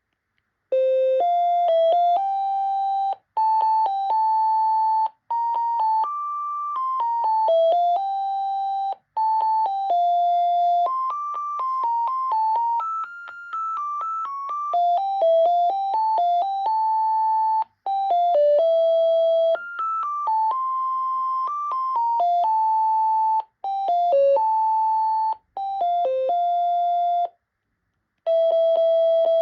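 Panasonic KX-TCD440 cordless phone playing one of its melody ringtones: a single-voice electronic tune of short beeping notes, in phrases broken by brief pauses.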